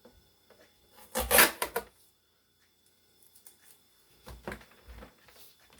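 Handling noise from unpacking a new air fryer: a loud rustling clatter about a second in, then softer rustles and knocks of the unit and its packing material.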